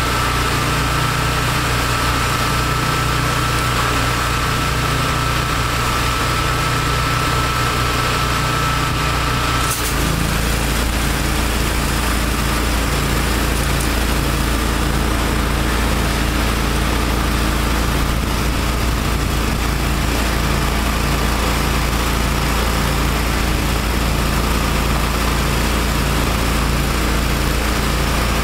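Engines of a trailer-mounted pressure washer and wastewater recovery vacuum running steadily. About ten seconds in, a high whine stops with a click and the running turns deeper and heavier as the vacuum surface cleaner is put to work on concrete.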